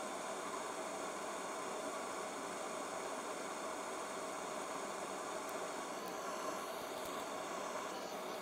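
Steady even hiss with a faint hum underneath, and no distinct events.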